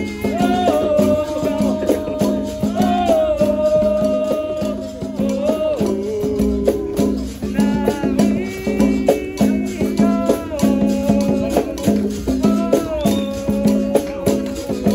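Capoeira roda music: voices sing long, gliding lines over a steady drone and a dense, even percussion rhythm of berimbau with caxixi rattle and pandeiro.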